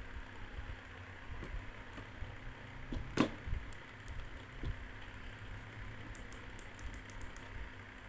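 Handling noise of a Xiaomi Redmi Note 7 smartphone: a single sharp knock about three seconds in as it is laid on a table, with a few lighter knocks and a quick run of faint clicks later on, over a steady low hum.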